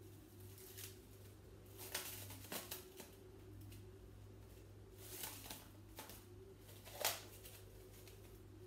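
Cling film crinkling and rustling in a handful of short crackles as it is scrunched by hand, the loudest about seven seconds in, over a faint steady hum.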